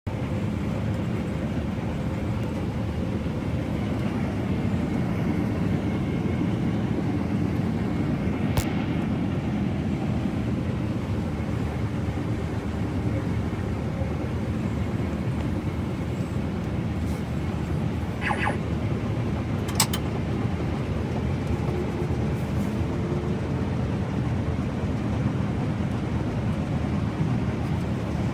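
Combine harvester running steadily while cutting a cereal crop, heard from inside its cab: a continuous low drone of the engine and threshing machinery, with a few brief clicks in the middle.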